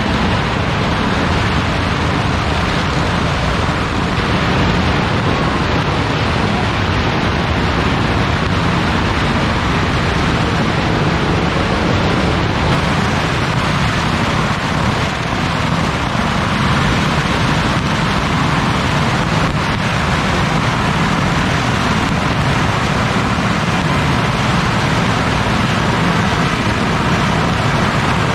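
A pagara, a long string of Chinese firecrackers, going off in a steady roar of rapid, merging pops as the burning string comes closer.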